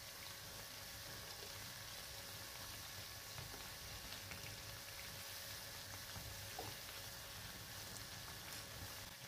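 Sesame-coated dough balls deep-frying in oil: a faint, steady sizzle, with a few light ticks as a fork turns the balls.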